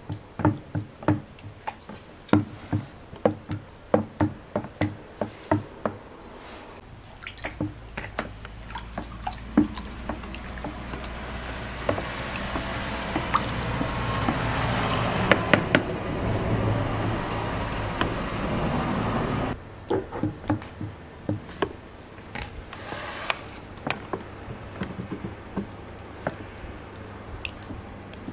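A wooden stick stirring raw olive-oil-and-lye soap mixture in a plastic bucket, knocking against the bucket's sides about twice a second with wet sloshing. In the middle a rushing noise builds up and cuts off suddenly, then the knocking resumes.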